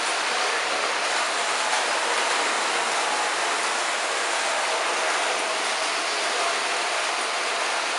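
Lionel Standard Gauge #392E toy steam locomotive running around a loop of three-rail track pulling passenger cars: a steady rushing whir of the electric motor and wheels on the rails, with no whistle.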